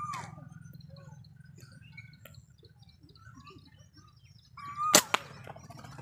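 A handmade slingshot fired once about five seconds in: a short sharp crack as the rubber band is released, just after a brief high steady tone. Faint scattered bird chirps before it.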